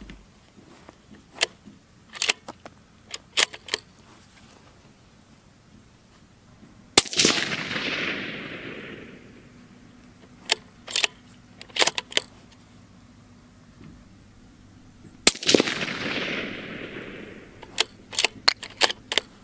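Two suppressed shots from a Ruger American Predator bolt-action rifle in .243, about eight seconds apart, each report trailing off over about two seconds. Around each shot come quick runs of sharp metallic clicks as the bolt is worked to eject and chamber rounds.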